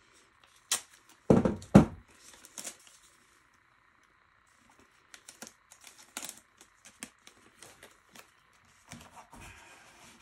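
Tape being torn and pressed down by hand: scattered clicks, taps and rustles, with a couple of loud thumps about a second and a half in.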